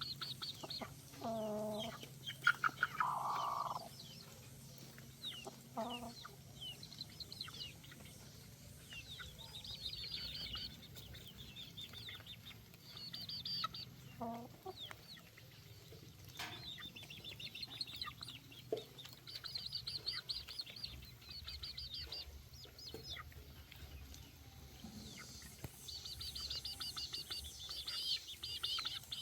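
Chicks peeping in repeated bursts of high cheeps, with a hen clucking, loudest about two to four seconds in.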